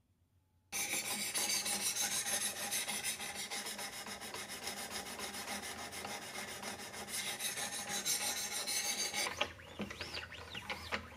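Diamond sharpening stones of a Wicked Edge guided sharpener rasping along a knife edge at 800 grit. A dense, rapid scratching starts about a second in, and near the end it turns fainter and squeaky.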